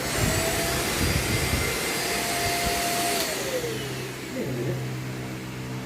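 Deerma vacuum cleaner switched on and running with a loud rush of air and a steady high whine. About three seconds in the whine falls in pitch and the sound becomes quieter.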